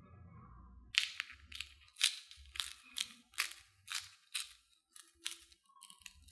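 A blade working a raw potato: a quick run of crisp, crunchy strokes, about two or three a second, starting about a second in.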